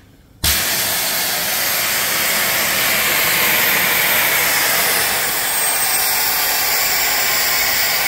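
A steam boiler's pop-off safety valve lifts suddenly about half a second in and vents steam with a loud, steady hiss. The boiler has reached the valve's set pressure of about 92 psi.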